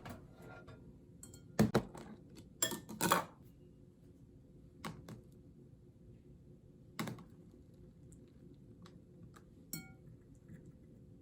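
Scattered light clicks and taps of small objects being handled, with a cluster of louder knocks about two to three seconds in and a few single clicks after.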